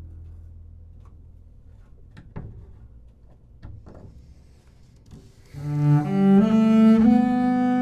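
Solo double bass: a low plucked note dies away, a few faint knocks follow, then bowed notes start loudly about five and a half seconds in and climb in steps.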